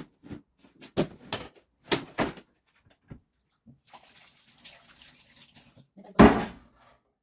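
Water running from a kitchen tap and splashing, after a few short knocks of handling. A loud splash comes about six seconds in.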